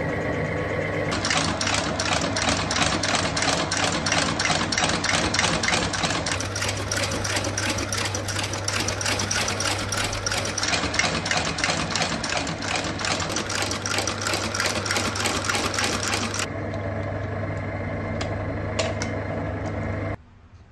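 Shoe outsole-stitching machine sewing a new leather sole to the boot's welt: the electric motor hums, with a rapid, even run of stitching strokes. About 16 seconds in the stitching stops while the motor keeps running, then the motor cuts off near the end.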